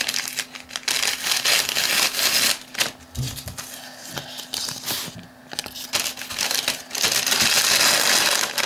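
Brown paper envelope and paper slip crinkling and rustling as they are handled and unfolded, in irregular bursts that are busiest about a second in and again near the end.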